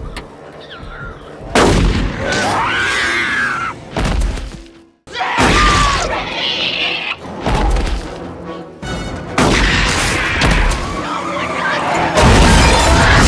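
Action-film soundtrack: dramatic music under a run of loud booms and hits, with several sudden loud blows.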